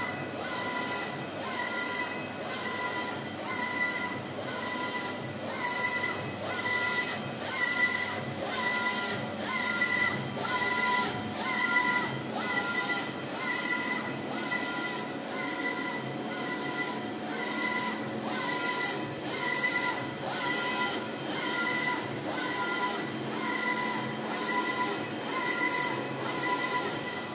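Wide-format UV DTF printer running: the print carriage shuttles back and forth with a short motor whine on each pass, repeating in a steady rhythm a little more than once a second, over the machine's continuous running noise.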